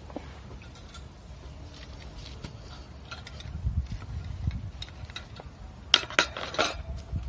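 Metal tongs and spatula clicking and clattering against a wire grill rack as a toasted hot sandwich is handled, with scattered light clicks and a quick burst of louder clatter about six seconds in.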